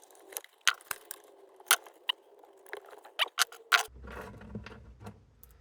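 Sharp, separate clicks and taps of small hard parts, plastic covers and screws, being handled and set down during reassembly of a chainsaw, then a brief low rumble of handling about four seconds in.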